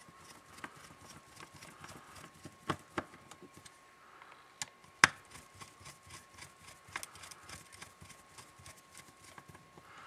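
Small screwdriver driving the belt-clip screws into a Baofeng UV-5R handheld radio's plastic case: a run of light clicks and ticks, with one sharper click about five seconds in.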